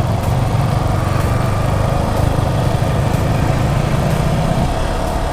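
Yamaha R15 V4's single-cylinder engine running under way, with wind rush over the helmet microphone; the engine note eases slightly near the end as the throttle comes off.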